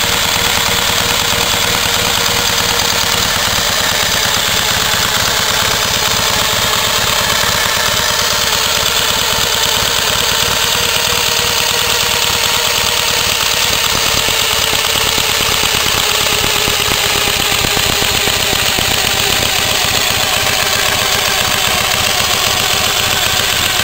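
1916 Douglas lightweight motorcycle's flat-twin engine idling steadily, with a fast, even beat of firing pulses.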